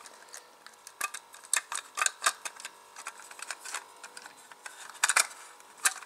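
Small hard plastic parts clicking and tapping together as the plastic body shell of a toy solar bulldozer kit is handled and pushed onto its plastic chassis: irregular sharp clicks, the loudest two about five seconds in and just before the end.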